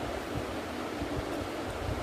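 Steady rushing air noise with irregular low buffeting on the microphone.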